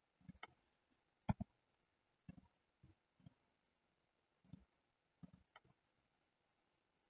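Faint computer mouse button clicks, scattered and several in quick pairs, the loudest pair about a second in.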